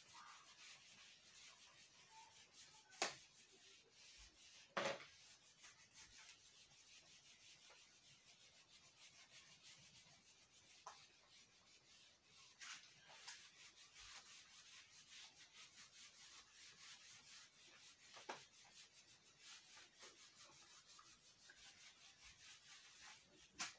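A whiteboard eraser rubbing across a whiteboard, faint and scratchy, with a few light knocks, the loudest about 3 and 5 seconds in.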